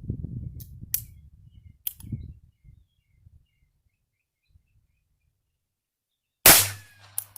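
A few sharp metallic clicks over a low rumble as the Bond Arms derringer is handled, then a single loud .22 LR pistol shot about two-thirds of the way in, followed by a small click.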